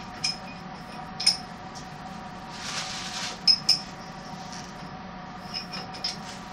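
Automatic metallographic grinder-polisher running with a steady hum, while sample mounts are clicked into its specimen holder: a few sharp clicks, two close together about three and a half seconds in, and a brief hiss near three seconds.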